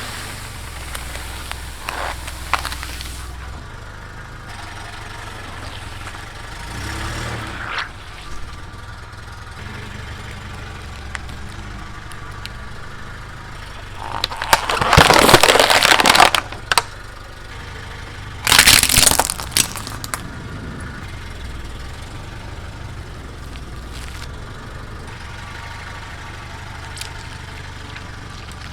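A car's engine running low and steady as it rolls slowly over objects, crushing them under its tyres: two loud crackling crunches about halfway through, each lasting around two seconds, with fainter crackles earlier.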